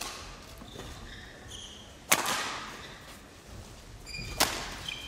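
Badminton rackets striking a shuttlecock during a rally: three hits about two seconds apart, the last two loudest and ringing in the hall. Short high squeaks of shoes on the court floor come between the hits.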